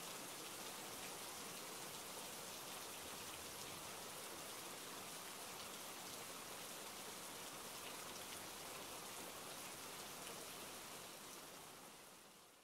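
Steady rainfall, a continuous hiss of many drops with no single sound standing out, fading out near the end.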